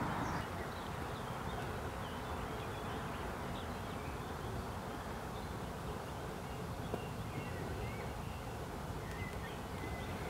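Outdoor ambience: a steady low rumble with faint, scattered bird chirps in the distance.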